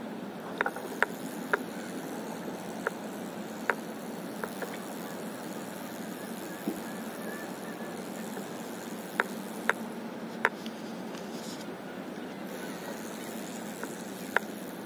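Steady hiss of open-air wind and water around a paddleboard, broken by about a dozen sharp taps at irregular intervals, most of them bunched near the start and around the middle.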